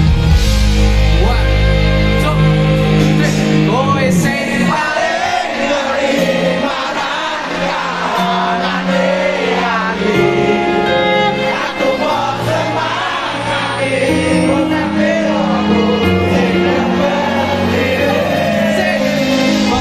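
Live band music with singing, loud and continuous, with steady bass notes underneath.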